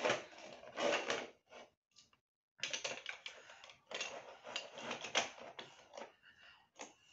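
Large plastic toy building bricks clicking and clattering as a toddler handles them and presses them onto a brick-built toy train. The rattling comes in irregular bursts, with a quiet gap of over a second after the first one.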